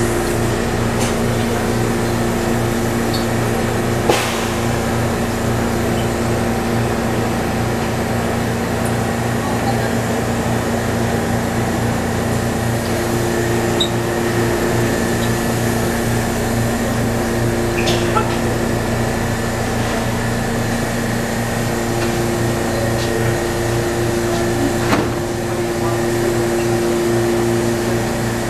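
Steady multi-tone electrical and ventilation hum of a subway train standing at the platform, under a low murmur of a dense crowd, with a few sharp clicks.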